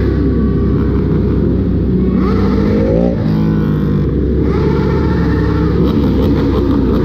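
Dense crowd of motorbikes running together in heavy street traffic, engines revving; one engine rises sharply in pitch about three seconds in.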